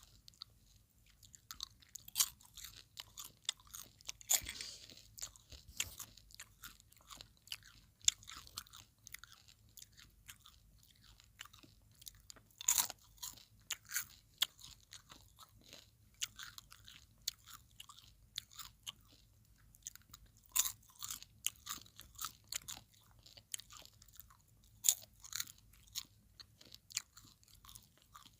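Popcorn being chewed close to the microphone: irregular crisp crunches and crackles, some louder bites among quieter chewing.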